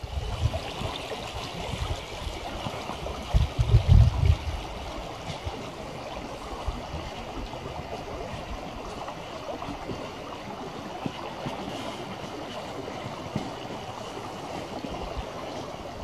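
A small river's open water flowing steadily between snow and ice banks. Low rumbles break in near the start and again around four seconds in.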